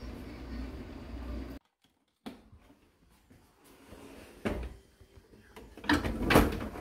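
Steady rain noise with a low rumble for the first second and a half, then, after a break, a dishwasher being opened and unloaded: a knock about four and a half seconds in, and a loud clatter of the wire dish rack being pulled out near the end.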